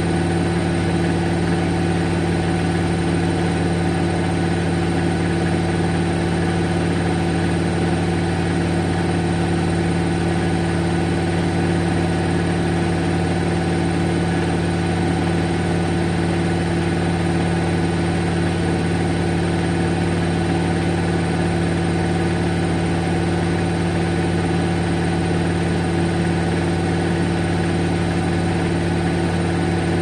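Bosch Serie 4 front-load washing machine in a steady high-speed spin near the end of its cycle: an even motor hum with a steady whine that holds the same pitch throughout.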